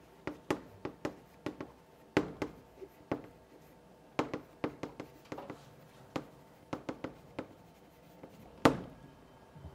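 Chalk writing on a blackboard: a string of irregular short taps and scratches as each stroke is drawn, with one sharper, louder tap near the end.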